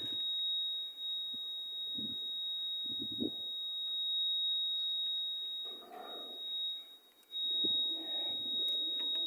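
A continuous high-pitched electronic tone, held at one pitch and fainter for a couple of seconds past the middle, with a few soft knocks and handling noises underneath.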